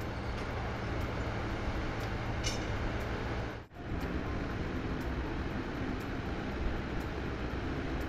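Steady noise of construction machinery running at a building site, with a short hiss about two and a half seconds in. The sound drops out for an instant near four seconds in, then similar steady machinery noise resumes.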